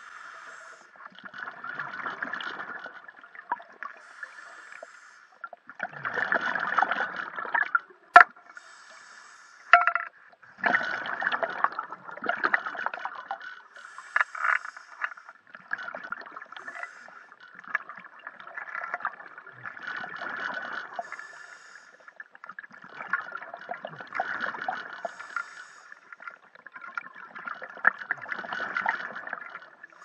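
Scuba regulator exhaust bubbling underwater in long bursts about every four seconds as the diver breathes out. Two sharp knocks come about eight and ten seconds in.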